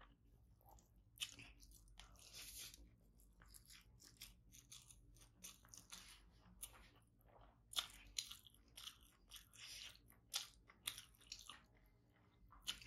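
Quiet chewing of a mouthful of rice: scattered short wet clicks and crackles, together with the soft squish of rice and curry being mixed by hand.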